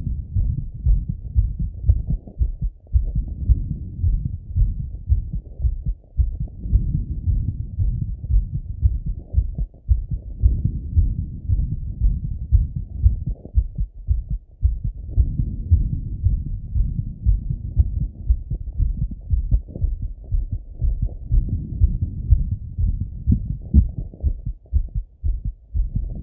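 A man's heartbeat heard through a Littmann stethoscope on his chest while recovering from a workout set: a continuous run of beats, deep and muffled with nothing high-pitched.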